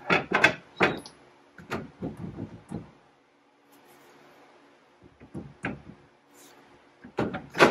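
Metal clunks and scrapes as a Toyota Tacoma rear axle shaft is slid into its axle housing, the drum, backing plate and studs knocking against the housing flange. Several scattered knocks, a short pause, then the loudest knock near the end as the axle goes home.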